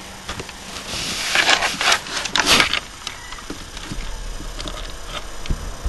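Handling noise as the webcam laptop is moved: rustling and scraping, loudest in a cluster of bursts between one and three seconds in, with a few light knocks.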